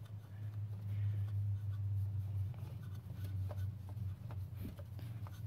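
Oil filter being unscrewed by hand: faint rubbing and scraping with a few soft ticks, over a steady low hum.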